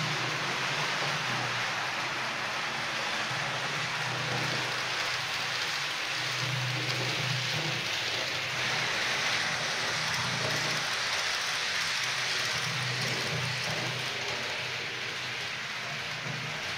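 H0-scale model freight train of tank wagons running along the layout: a steady rushing rattle of metal wheels rolling on model rails, with a low hum that swells and fades several times.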